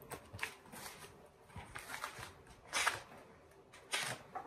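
Faint handling sounds of a hardcover picture book being opened, soft rustles and taps of cover and pages, with two brief louder rustles about three and four seconds in.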